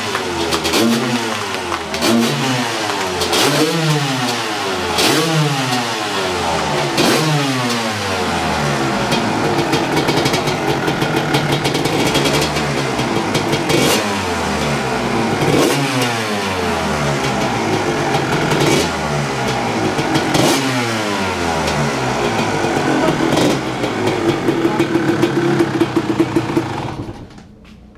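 Kawasaki KX250 single-cylinder two-stroke dirt bike engine running on its first start after a student rebuild, blipped again and again so the pitch climbs and falls about once a second. It then runs steadier with smaller blips and cuts off about a second before the end.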